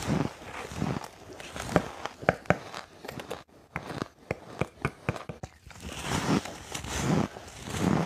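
Biting and chewing fluffy white snowflake ice: a quick run of sharp, crisp crunches in the middle, with softer crunching near the start and end.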